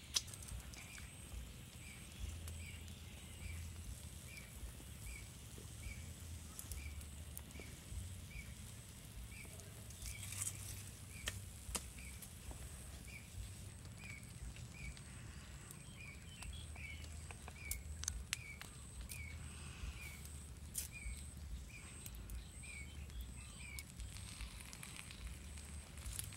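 Outdoor ambience led by a small animal's short, high chirp repeating about every half second, over a faint, steady high-pitched buzz. A few sharp clicks are scattered through it.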